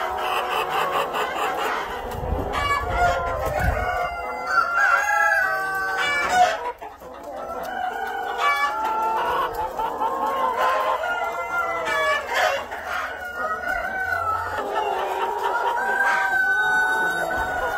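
A flock of exhibition-type Rhode Island Red chickens calling over one another: hens clucking, with roosters crowing among them. The calls overlap with no break.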